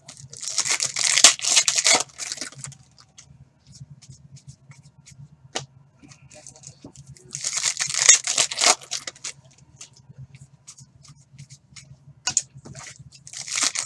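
Foil trading-card pack wrappers being torn open and crinkled, in two bursts of tearing about six seconds apart with a third starting near the end, and light clicks of cards being handled in between.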